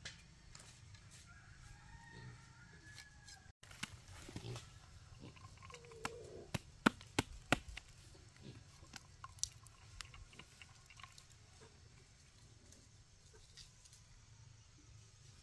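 Faint chicken calls, with a few sharp taps and knocks clustered about six to eight seconds in.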